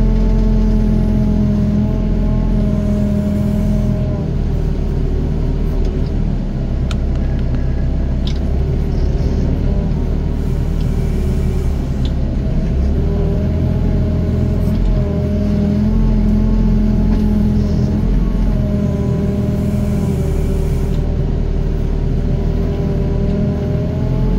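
Doosan DX55 mini excavator's diesel engine running under load, its tone dipping and rising in slow cycles as the hydraulics are worked to dig and dump soil. A few light clicks sound near the middle.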